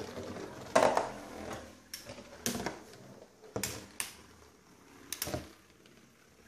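Two Beyblade spinning tops clashing in a plastic stadium: a series of sharp plastic clacks, some in quick pairs, as the tops knock into each other and the stadium wall, growing quieter toward the end.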